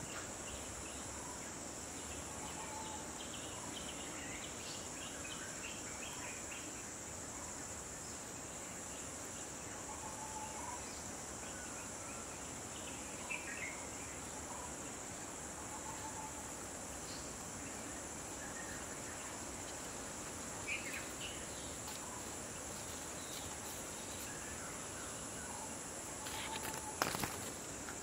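Evening insect chorus: a steady high-pitched chirring, with a second, higher insect trill pulsing evenly above it. Scattered short bird calls come through it, and a sharp click sounds about a second before the end.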